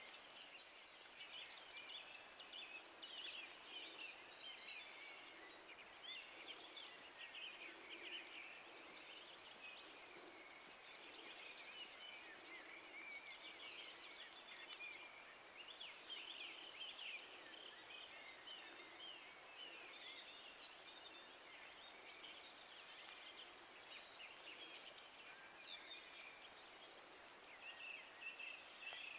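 Faint chorus of small birds: many short, high chirps and twitters overlapping without a break.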